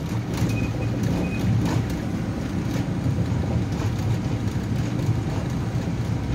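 Boston MBTA Red Line subway train pulling out of a station, heard from inside the car: a steady low rumble of motors and wheels on the rails, with occasional clicks and knocks.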